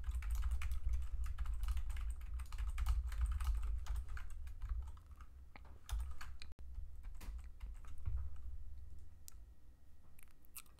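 Typing on a computer keyboard: rapid runs of keystrokes for the first five seconds or so, then sparser, scattered key presses, over a low steady hum.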